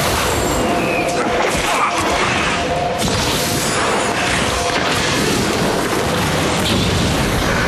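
Battle sound effects: a dense, loud wash of crashing and clashing with scattered impacts, and faint held musical notes underneath.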